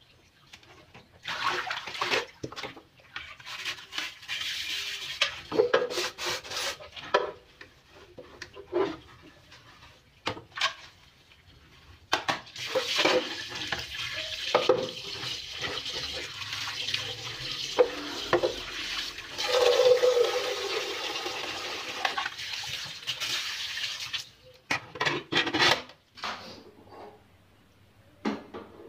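Washing up at a sink: water from a tap splashing over a metal steamer pot, with knocks and clatter of pots and pans. The water runs steadily for about ten seconds in the middle, with shorter splashes and knocks before and after.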